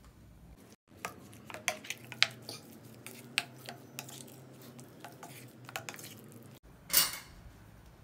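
A metal spoon stirring minced chicken marinade in a ceramic bowl, clinking sharply against the bowl many times at an uneven pace. Near the end there is one short, louder scraping noise.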